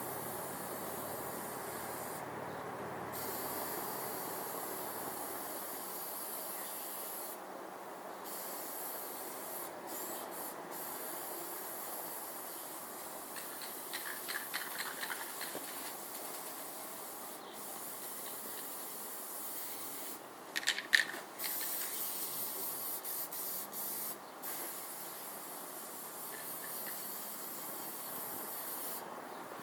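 Steady hissing spray, with a short run of clicks about halfway through and a louder cluster of clicks a little later.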